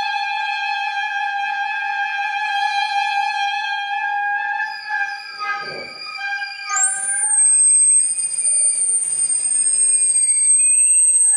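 Free-improvised music for saxophone and live electronics: a held pitched tone with many overtones sustains for about five seconds and thins out, then a shrill, very high whistle-like tone enters about seven seconds in and holds steady, with a slowly rising tone beneath it near the end.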